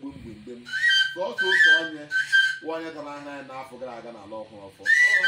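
Four short, high whistled notes, each held on one pitch after a slight upward flick at the start: three in quick succession about a second in and a longer one near the end, over people talking.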